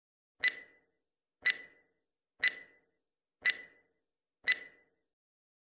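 Countdown timer sound effect: five sharp clock-like ticks, one each second, each with a short metallic ring.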